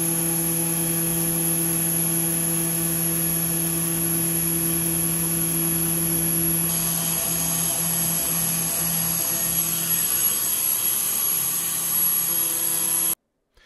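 CNC milling machine running its spindle while a solid-carbide D-bit dry-cuts grooves into a cast iron lapping plate: a steady machining whine made of several fixed tones with a high, thin tone above. It stops abruptly near the end.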